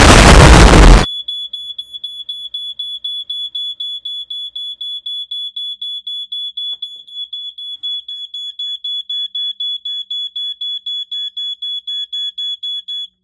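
A BRK 86RAC smoke alarm sounding: a high-pitched beep repeated rapidly, about four times a second, which cuts off suddenly near the end. The alarm has been set off through its interconnect line by a mechanical thermostat wired to it. It opens with a loud burst of noise lasting about a second.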